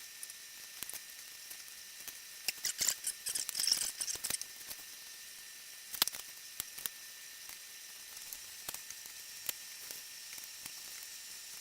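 Knife cutting raw pork on a cutting board: scattered light clicks and taps of the blade against the board, with a busier spell of cutting and scraping about two to four seconds in.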